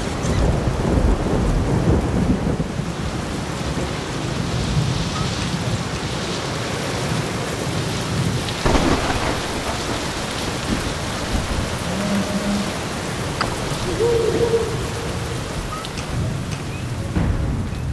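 Storm on the film's soundtrack: steady heavy rain over a continuous low rumble of thunder, with a sharper, louder crash about nine seconds in.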